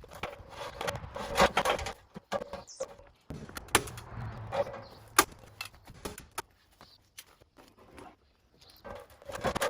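Hand staple gun fastening mesh screening to a wooden window frame: several sharp snaps at irregular intervals, with rustling and handling noise between them.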